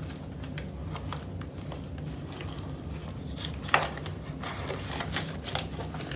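Paper banknotes and a paper envelope rustling and crinkling as a stack of twenty-dollar bills is slipped into a binder envelope and handled, with one sharper snap a little past halfway.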